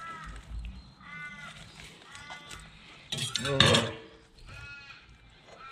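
A bird calls over and over in short, drawn-out cries, about one a second. A little after halfway comes a louder scraping clatter of a filleting knife working through a large fish.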